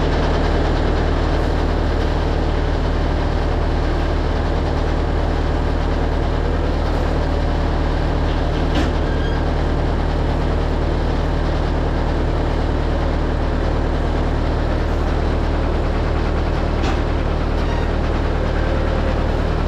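Farm loader's engine idling steadily, a constant low drone, with a faint click or two.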